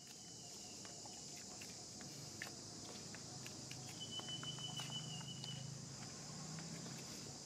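Steady high-pitched insect drone, with scattered small clicks and taps. A thin, steady high tone comes in about four seconds in and lasts about a second and a half, over a low hum.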